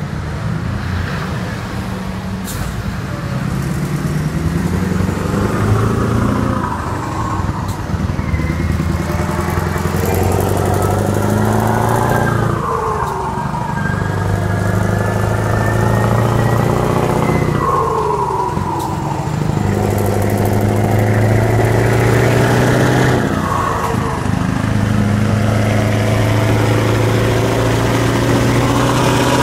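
Scania 4-series V8 diesel truck with an open, straight-through exhaust, accelerating through the gears. The engine note climbs, drops at each upshift several times, and climbs again. A thin high whistle rises over it partway through.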